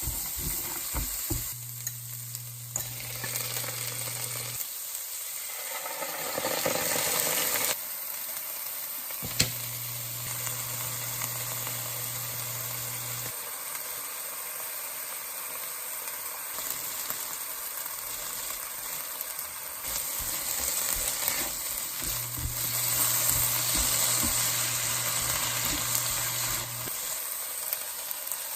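Food sizzling and crackling in a hot pan as it is stirred. A low steady hum comes on and cuts off three times, and there is a single sharp click about nine seconds in.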